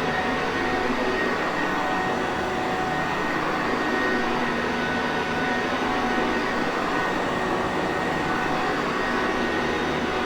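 Sanitaire Perfect upright vacuum cleaner running steadily: an even motor roar with a faint high whine on top.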